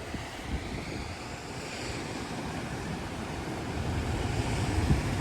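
Wind buffeting the microphone over a steady rush of surf, with low rumbling gusts, growing louder toward the end.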